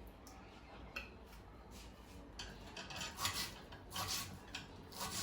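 Kitchen dishes and metal utensils being handled: a string of short clinks, knocks and scrapes, busiest about three to four seconds in.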